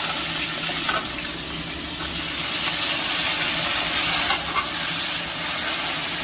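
Vegetables frying in hot oil in a steel kadai: a steady sizzle, with a steel spatula stirring and scraping the pan, about a second in and again past the middle.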